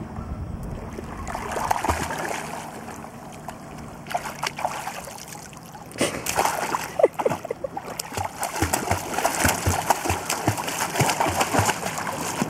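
A weimaraner splashing in shallow lake water, rearing up on its hind legs and slapping the surface with its front paws instead of swimming properly. The splashing gets louder and choppier about halfway through, with irregular slaps and sloshes.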